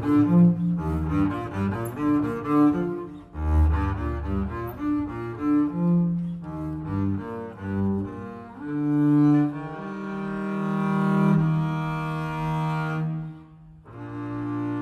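Solo double bass played with the bow: a run of quick notes, then longer held notes from about halfway, with a short break near the end before a new sustained note.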